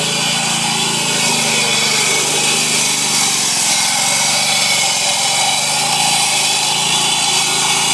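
Engine-driven walk-behind road saw cutting asphalt: a steady engine hum under the loud, even hiss of the blade grinding through the pavement.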